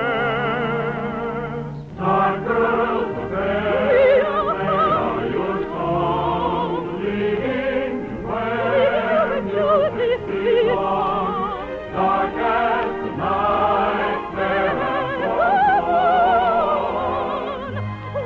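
Operetta singing with orchestral accompaniment, the voices held with strong vibrato.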